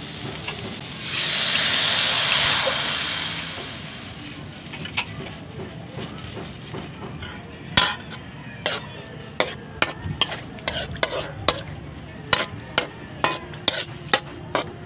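Coconut milk hitting a hot metal wok and sizzling loudly for a couple of seconds. Then a metal spoon stirring and clinking sharply against the wok, many times over the second half.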